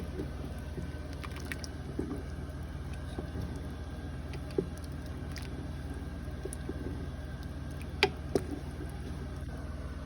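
Kitchen background: a steady low mechanical hum with a few sharp clinks, one about halfway and two in quick succession near the end.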